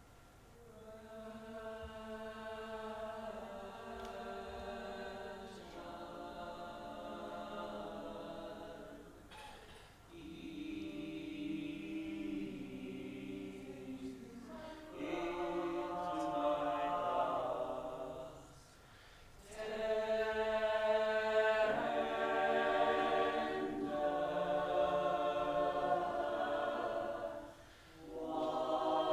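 A group of voices singing a cappella in harmony: long held chords in phrases of a few seconds with short breaks between, getting louder about halfway through.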